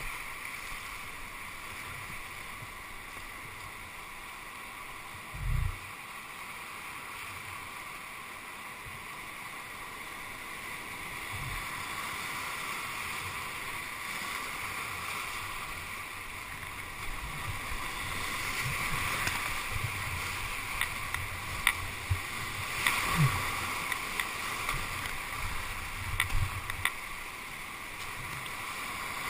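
Rushing whitewater of a river rapid, heard from a kayak running through it. The rush grows louder in the second half, with sharp splashes and knocks of water, and a dull thump about five seconds in.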